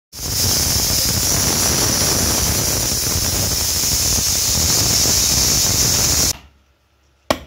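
Aluminium pressure cooker on a gas stove venting steam through its whistle weight: a loud, steady hiss for about six seconds that cuts off suddenly, the sign that the cooker has come up to pressure. A single sharp knock follows near the end.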